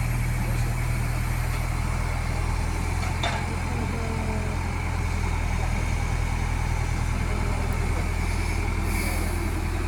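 Heavy diesel engine running steadily at an even speed, with one short click about three seconds in.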